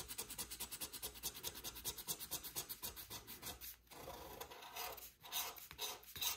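Scratch-off lottery ticket being scratched: quick, even back-and-forth strokes, a short break just before four seconds in, then more strokes.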